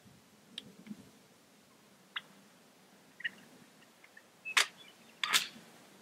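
A few faint short ticks, then two sharp clicks close to the microphone, about three quarters of a second apart near the end.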